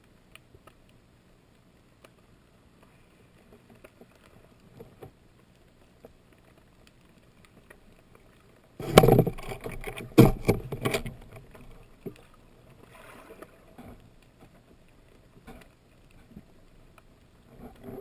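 Muffled underwater handling noise on a camera in a waterproof housing: faint scattered clicks, then a loud cluster of knocks and rubbing about nine seconds in that lasts about two seconds, with a few smaller knocks later.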